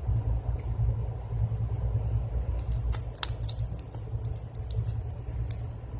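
Steady low rumble, with a scatter of small crackles and clicks for about three seconds from the middle on as a scent sachet is squeezed out onto slime.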